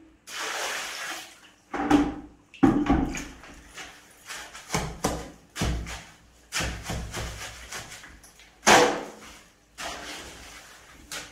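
Water poured from a bucket onto a heap of sand and cement, lasting about a second, followed by a shovel repeatedly chopping and scraping through the wet mortar against a concrete floor as it is mixed by hand.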